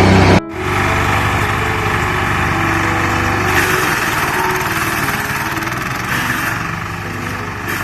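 Engine of a garden branch shredder-chipper running steadily. The sound cuts out abruptly for a split second about half a second in, then resumes at a slightly lower, even level.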